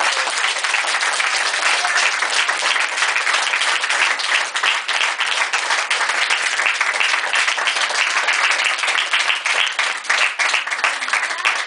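Applause from a small crowd of people clapping their hands, dense and steady throughout.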